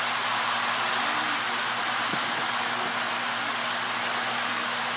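Electric toy model train running around its track: a steady whirr of wheels rolling on the rails, with a low steady hum underneath.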